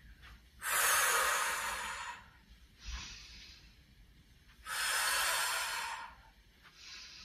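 A woman's forceful exhalations, two long breaths out about four seconds apart with shorter, quieter breaths between them. She breathes out on each push against a mini resistance band during lateral band walks.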